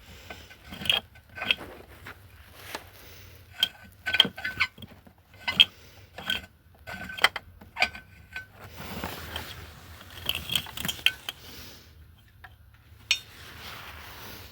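Metal hand tools clicking and clinking in a series of sharp, ringing metallic clicks about every half second. Near the middle and again near the end the clicks give way to stretches of scraping and rustling.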